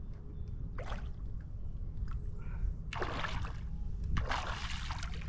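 A hooked bass splashing and thrashing at the surface beside the boat, in two splashy bursts in the second half, over a steady low rumble.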